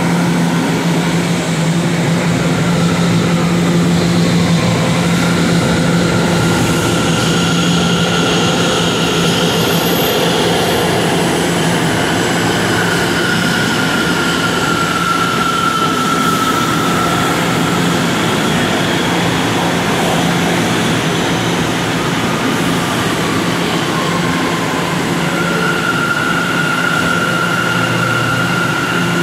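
Kawasaki R211A subway train standing at the platform with its onboard equipment running: a steady low hum with faint high whines above it.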